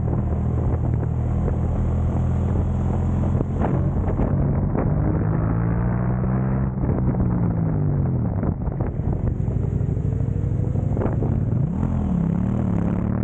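Motorcycle engine running hard at track speed. Its pitch falls away about six seconds in as the throttle is closed for a corner, then climbs again as the bike accelerates out.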